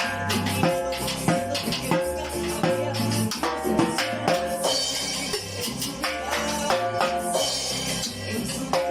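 Recorded cumbia music: a steady bass line under a regular percussion beat with shaker-type percussion and a melody line.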